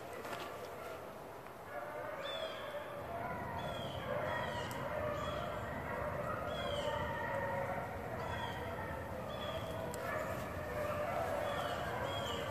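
A pack of rabbit hounds baying while running a rabbit's trail, their calls repeating about once a second from about two seconds in. Baying like this is the sign that the hounds are on the rabbit's scent and in chase.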